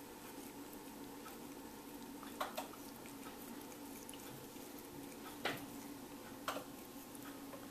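Cat licking a sheer curtain: four short, sharp wet tongue clicks, two close together, then one and another a second apart, over a steady low hum.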